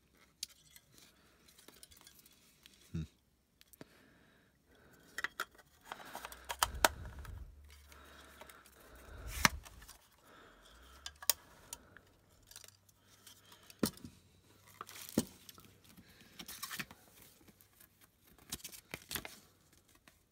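Etekcity collapsible plastic LED camping lantern being handled, pulled open and pushed shut: scattered sharp clicks and knocks of its plastic body, with stretches of rustling from the plastic wrapping.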